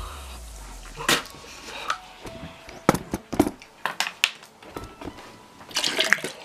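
A person coughing and spitting over a basin of water in a string of short, sharp bursts, with a cluster near the end. It is the choking reaction to a mouthful of dry ground cinnamon.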